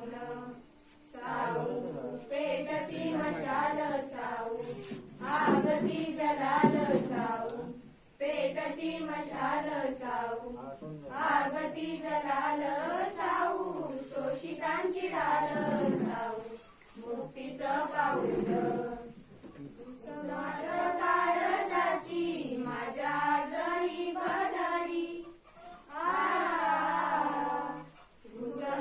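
A group of schoolgirls singing a Marathi awareness song (prabodhan geet) together, in sung phrases with short pauses between them.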